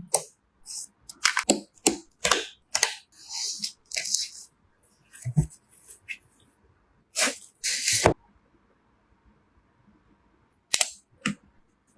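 Computer parts being handled and fitted together: a run of sharp clicks and snaps, with short bursts of rustling plastic about three and a half seconds in and again near eight seconds.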